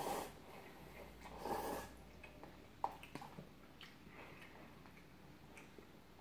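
Jjajang-style cup noodles slurped in two short bursts, right at the start and again about a second and a half in. These are followed by a few light clicks of a utensil against the paper cup.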